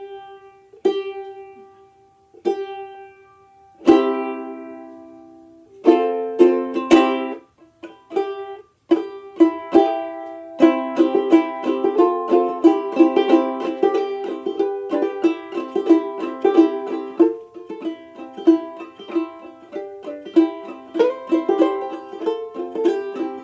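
Tenor banjolele played solo: a single note plucked again and again, then a chord struck and left to ring about four seconds in, and from about ten seconds in a steady run of picked notes and strummed chords.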